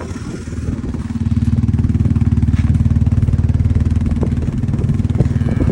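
Engine of a small off-road vehicle running under way, picking up and growing louder about a second in, then holding steady while it tows a homemade calf sleigh.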